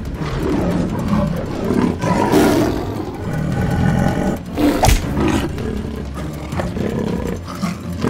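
Lion and tiger roaring at each other as they fight, overlapping roars throughout, with one sharp thump about five seconds in.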